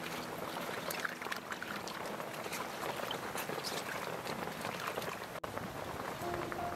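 Water pouring into a steel basin of vegetables and splashing as cabbage and greens are rubbed and rinsed by hand, with small knocks and splashes.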